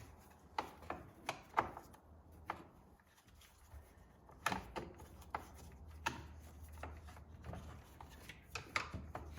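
Irregular light clicks and knocks of parts being handled while a string-trimmer power head is put back together.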